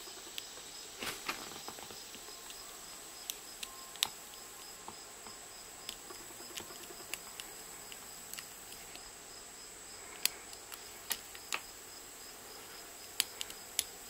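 Lock pick and tension wrench working the pins of a Brinks marine padlock fitted with security pins: faint, irregular metal clicks and ticks, spaced a second or more apart.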